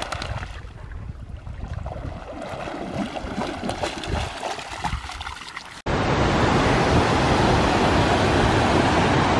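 A dog splashing as it paddles and wades through shallow lake water. After an abrupt cut about six seconds in, whitewater in a creek rushes loudly and steadily over rocks.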